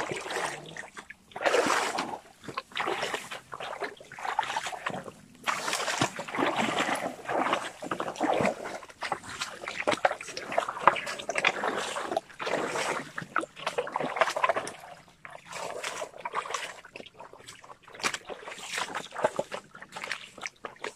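Footsteps splashing and sloshing through shallow stream water, in uneven bursts with short pauses.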